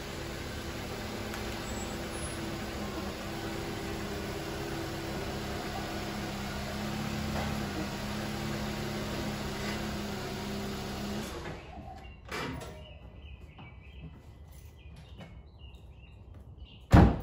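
2016 Volkswagen Passat's TSI engine running steadily as the car pulls into the garage, then shut off about eleven seconds in. A click follows, and a single sharp bang near the end.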